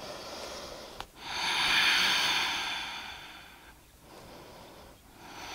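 A woman breathing audibly close to the microphone. A long airy breath starts about a second in, swells and fades over some three seconds, and a quieter breath follows near the end.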